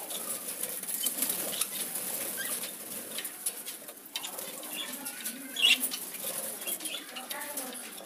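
Pet budgies fluttering and flapping their wings, with a louder flurry a little past halfway.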